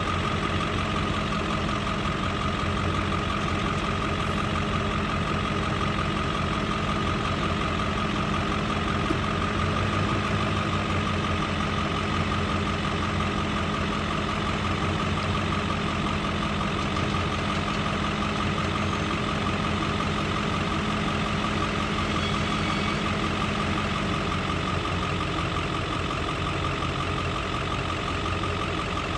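Corn silage harvesting machinery running steadily: an engine drone with a constant high whine over it. The lower engine tone drops slightly in pitch near the end.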